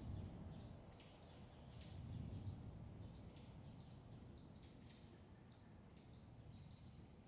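Faint high chirps repeating about twice a second over a low, steady rumble.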